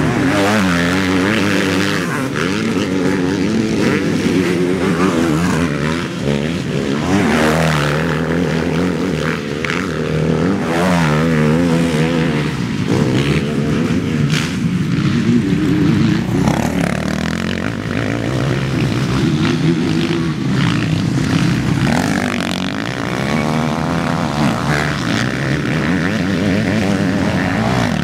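Motocross bike engines revving hard as the bikes race past. The pitch rises and falls over and over as the riders work the throttle, and there is no let-up.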